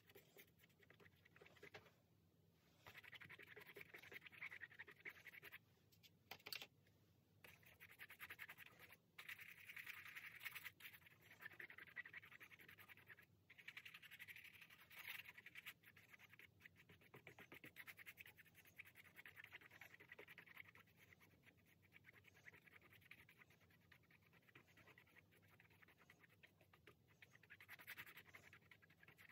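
Faint scratchy rubbing of a paintbrush working wet acrylic paint across the painting surface, in stretches of strokes a few seconds long with short pauses, fading after the middle and picking up again near the end.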